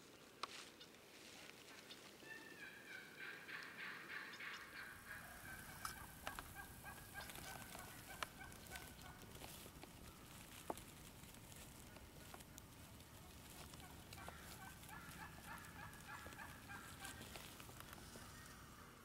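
Wild turkeys gobbling, faint and distant: a run of calls a few seconds in and another near the end. A few sharp clicks fall in between, and a low rumble comes in after about four seconds.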